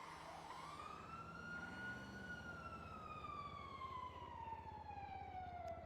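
Emergency-vehicle siren wailing faintly in one slow sweep: the pitch rises over the first two seconds, then falls slowly for the rest.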